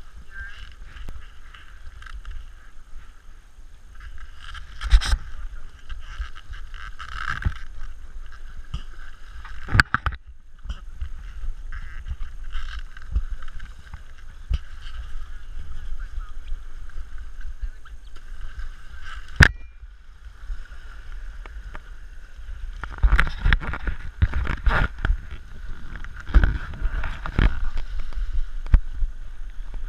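Muffled rubbing and knocking from a GoPro camera worn under a diver's neoprene hood as the wearer walks over shore rocks, with water lapping. There are single knocks now and then, and a busier run of them near the end.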